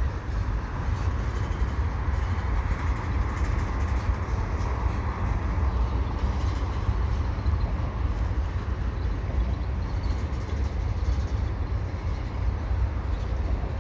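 Freight train cars rolling slowly past at a crawl, a steady low rumble of wheels on the rails.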